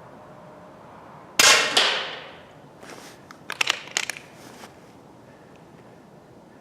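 .22 air rifle firing a single shot: a sharp, loud report with a trailing decay, followed by a second, smaller crack. About a second later comes a run of short, sharp clicks.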